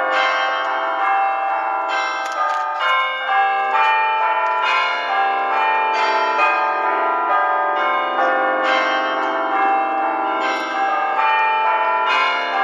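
Church bells pealing: several bells struck over and over, their tones overlapping in one continuous ring. The ringing follows a church service's closing blessing.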